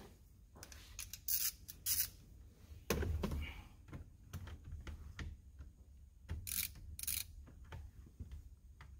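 Hand ratchet clicking in short rasping bursts, two pairs a few seconds apart, as screws are tightened. A low knock comes about three seconds in.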